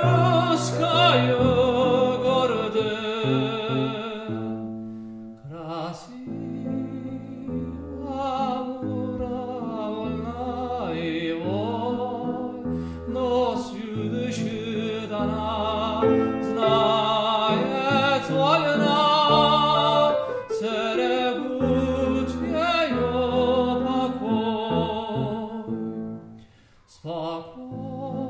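Classically trained male voice singing with wide vibrato, accompanied on a grand piano. The music falls briefly quiet a little before the end, then resumes.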